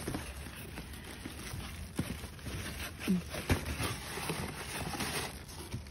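Corrugated cardboard and plastic wrap rustling and crinkling as a wrapped hydrangea seedling is unwrapped and pulled from its box, with a few small knocks.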